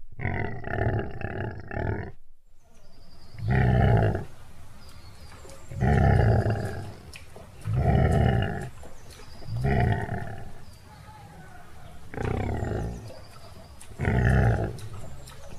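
Lion roaring: a series of loud calls, one about every two seconds.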